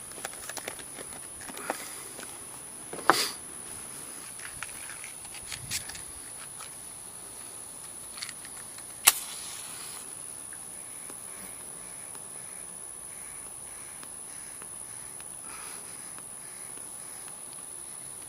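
Steady high-pitched drone of insects, such as crickets, with a few sharp clicks over it, the loudest about nine seconds in.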